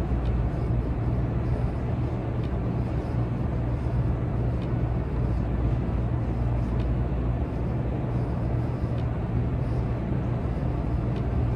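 Steady low rumble of background noise, with faint ticks about every two seconds.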